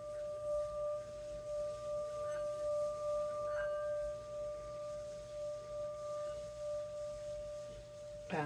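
A singing bowl ringing on after a strike: one steady tone with a fainter higher overtone, gently wavering in loudness, until it is cut off near the end.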